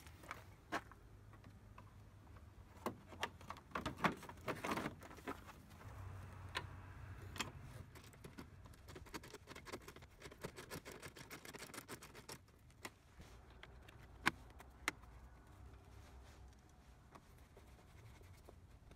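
Light clicks and metal clinks of hand tools, a 10 mm socket on an extension and a Phillips screwdriver, working the screws and bolts of a scooter's rear body panels. There is a denser run of clicking about four seconds in.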